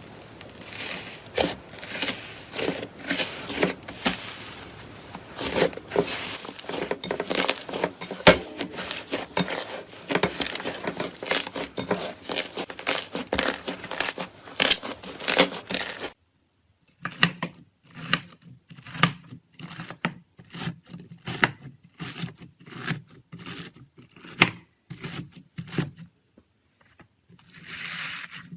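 Slime being squeezed and pressed by hand, making dense crackling and popping. After a sudden cut about sixteen seconds in, sparser wet pops and clicks follow, and a short swelling hiss comes near the end.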